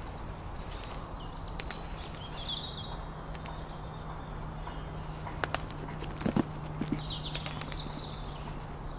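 Woodland ambience: a steady low hum under birds chirping twice, about a second in and again near the end, with a few sharp snaps a little past the middle, the loudest sounds.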